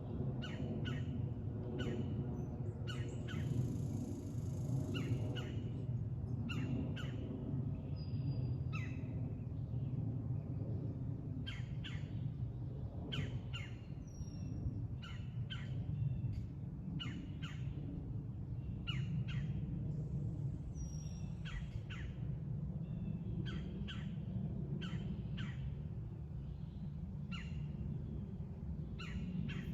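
Wild birds calling: short, sharp calls repeated about once a second, over a steady low rumble.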